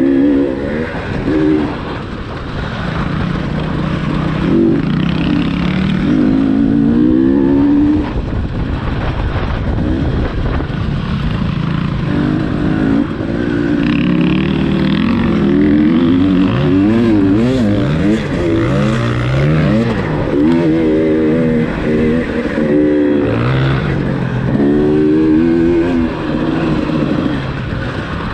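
2018 KTM 300 TPI's fuel-injected single-cylinder two-stroke engine being ridden hard, the throttle opened and shut over and over so the pitch climbs and drops every second or two.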